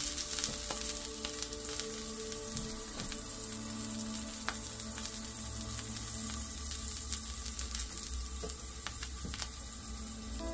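Smash burger patties frying in a cast iron skillet: a steady sizzle with scattered small pops and crackles of spitting fat.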